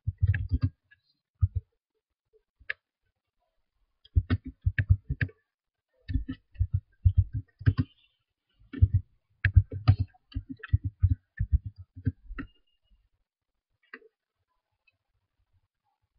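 Computer keyboard keystrokes: typing in irregular bursts of quick clicks with short pauses between words, which peters out a couple of seconds before the end.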